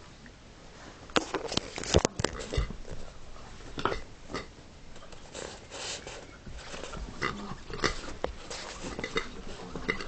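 Small dog tussling with a pink toy pig on a sofa: irregular scuffling and short, uneven bursts of noise, with sharper knocks about two seconds in and again near eight seconds.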